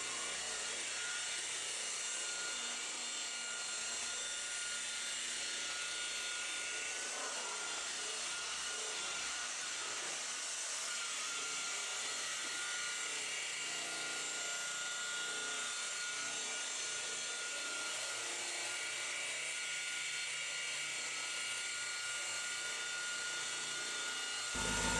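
Electric polisher running steadily, with a thin constant motor whine over a hiss, buffing overspray off a car's painted wing.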